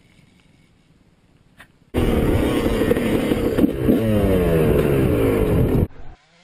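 About two seconds in, a dirt bike engine starts loud and revs, its pitch climbing and dipping with the throttle, under heavy wind noise on a camera riding on the bike. It cuts off suddenly near the end.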